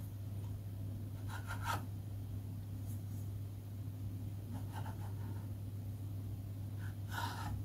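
Kitchen knife blade scraping through thin rolled dough against a hard countertop, in a few short strokes spread out over several seconds, over a faint steady low hum.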